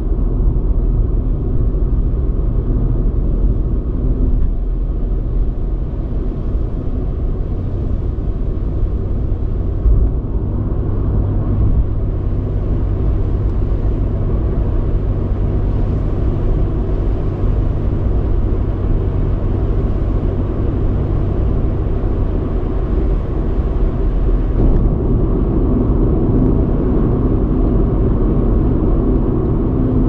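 Car driving at expressway speed, heard from inside the car: a steady rumble of tyres and engine. A low drone sets in about ten seconds in, with a single bump at the same moment, and fades out a little after twenty seconds.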